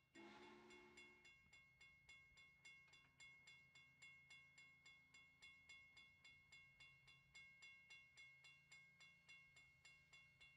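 A bell ringing rapidly and steadily, about four strokes a second, each stroke ringing at the same pitch, after a brief low blast at the very start.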